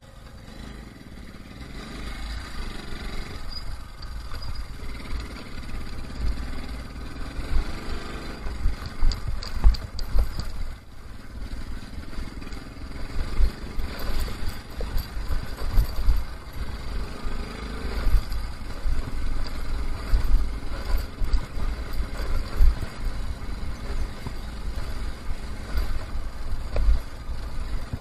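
Motorcycle engine running under way as the bike is ridden, picked up by an action camera's microphone on the handlebar. An uneven low rumble of wind and road jolts runs under the engine, and the sound swells over the first couple of seconds as the bike pulls away.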